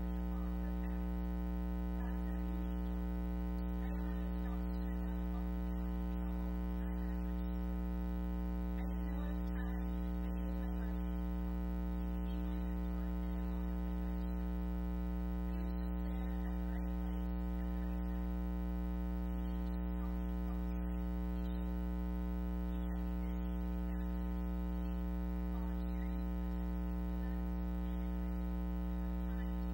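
Steady electrical mains hum with a buzzy edge, unchanging and dominating the sound, so that the talk at the lectern microphone is all but buried beneath it.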